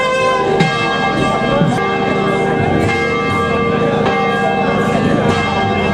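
Hindu temple bells ringing on and on, several ringing tones overlapping.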